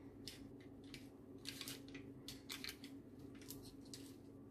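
A metal spoon scraping and clicking against crinkled aluminium foil while masala paste is spread over grilled sardines. The scrapes come in faint, short bursts about once a second, over a faint steady hum.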